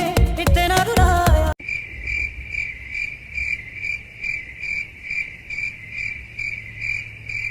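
A song plays and cuts off abruptly about one and a half seconds in. Cricket chirping follows, an even, high-pitched chirp about twice a second.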